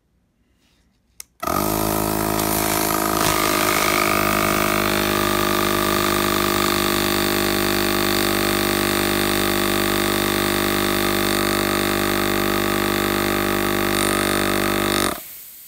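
Slime Elite heavy-duty tire inflator's compressor switched on with a click about a second in, spinning up and then running steadily as it builds pressure, then stopping shortly before the end.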